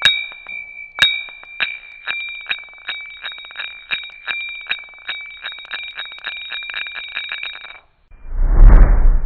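A bell-like metallic ringing, struck over and over with strikes that come faster and faster for about eight seconds, then stopping; a whoosh follows near the end.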